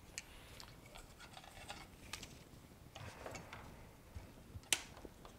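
Faint, scattered small clicks and taps of handling on a repair bench, with one sharper click near the end.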